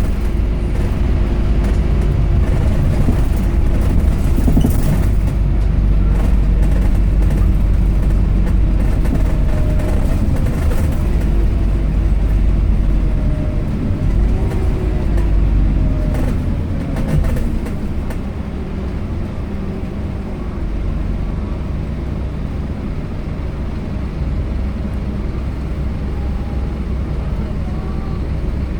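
Scania K270UB Omnilink single-deck bus running, its engine hum strong and steady. About halfway through, the engine note slides up and down in pitch, then settles into a slightly quieter, steadier run.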